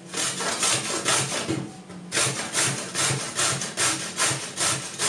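Carrot being grated on the coarse side of a metal box grater standing on a wooden cutting board: quick, even scraping strokes, about three a second, with a short break about two seconds in.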